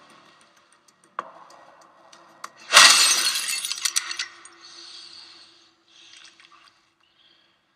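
Glass shattering in a movie trailer's sound track, played through speakers: one loud crash about three seconds in, then falling shards tinkling away over about a second and a half, over a faint steady low tone.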